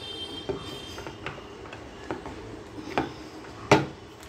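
A wooden lever-operated poori press being worked to flatten a dough ball: a run of light knocks and clicks, about one a second, with a sharper, louder knock near the end.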